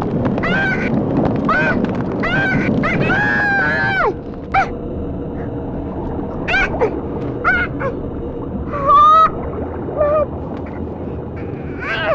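A dozen or so short honking calls, like geese, coming at uneven intervals and densest in the first few seconds, over a steady low background hum.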